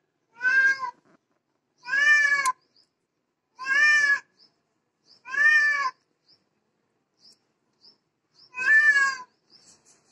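Domestic cat meowing five times, each meow under a second long and arching up and then down in pitch, with a longer pause before the last one.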